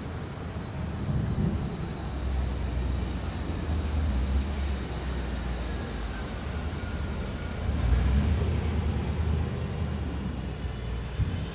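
Rolling thunder: a long, deep rumble that swells and fades several times, loudest about eight seconds in.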